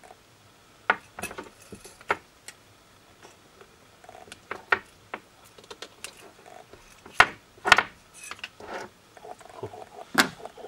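Side cutters snipping and the hard plastic and metal parts of a Canon LP-E6 camera battery pack clicking and knocking as its cells are cut and pulled free. The loudest snaps come a little past seven seconds in and again about ten seconds in.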